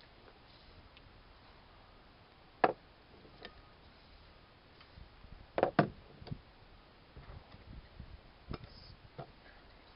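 Scattered sharp clicks and knocks of Wilton bench vise parts and tools being handled during reassembly: one loud knock about two and a half seconds in, a quick double knock near the middle, and several lighter ticks after it.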